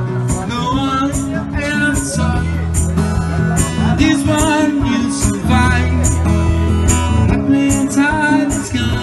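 A man singing and strumming an acoustic guitar, his voice amplified through a microphone and a small PA speaker.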